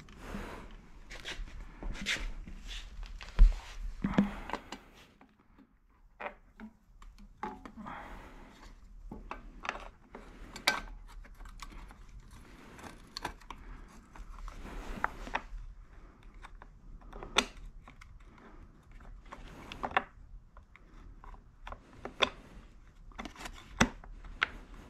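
Hands fitting a plastic CRF50 seat and fender kit with metal bolts: scattered clicks, rattles and plastic scraping, with one sharp knock about three and a half seconds in.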